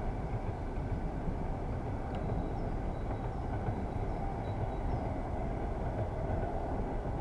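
Steady low wind rumble buffeting the camera's microphone, with no speech.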